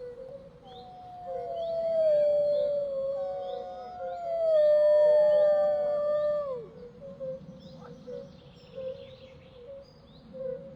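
Wolf howling: two long howls, each sliding slowly down in pitch, the second ending in a sharp drop, with short high chirps repeating faintly behind.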